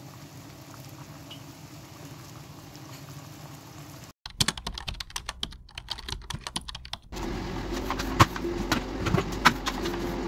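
A pot of tea boiling hard on the hob, a steady bubbling. After a sudden cut comes about three seconds of rapid keyboard-typing clicks. Then a broom sweeps a hard kitchen floor, with sharp knocks and a steady low hum underneath.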